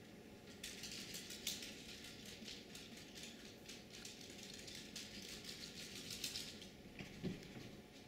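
Camera noise picked up while zooming in: a faint crackling, ticking hiss that starts just after the beginning and stops about a second before the end, then a short low thump.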